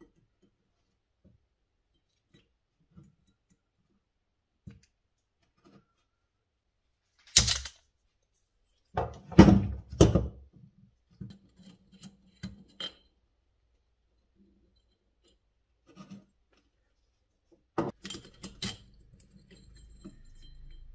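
Hand tools and small metal parts of a warm-up regulator clinking and knocking on a wooden workbench as it is pried apart with a screwdriver: scattered faint ticks, then a few louder clatters about a third of the way in, around halfway, and again near the end.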